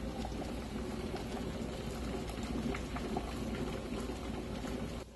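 Water boiling hard in an enamelware water bath canner: a steady bubbling hiss with scattered small pops, the rolling boil at which the sealed jam jars are processed.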